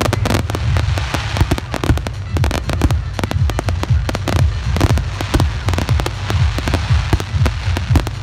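Fireworks display firing a dense, rapid barrage of shell bursts and crackling, many sharp bangs a second, over a steady low rumble.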